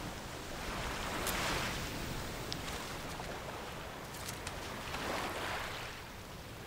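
Surf washing on a pebbly shore, an even rush that swells about a second in and again about five seconds in.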